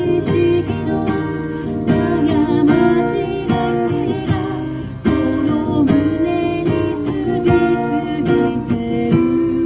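Acoustic guitar music played live, with strummed and plucked chords under a held melody line.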